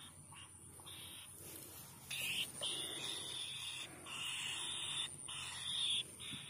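Insects calling from the rice field in about four short stretches, each under a second to about a second long, starting about two seconds in.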